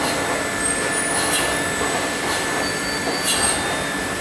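Polymer pencil extrusion line running steadily, with a constant high whine and a short hiss repeating about once a second.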